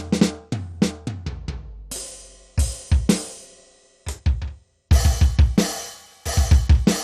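Electronic drum kit played through a dbdrums db10 V3 sound module: a fast run of drum hits, then crash-cymbal hits with bass drum, a short break, and a dense groove of drum and cymbal strokes in the second half.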